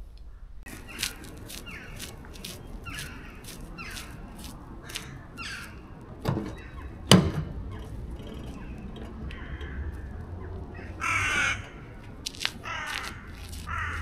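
Crows cawing in a run of short, harsh calls that fall in pitch, about two a second, with more calls near the end. A single loud knock about seven seconds in.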